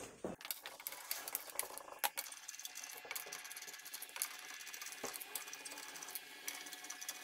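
Sped-up sound of wheel-bolt work with hand tools: a dense, high-pitched run of rapid clicks and rattles, with a sharper click about two seconds in.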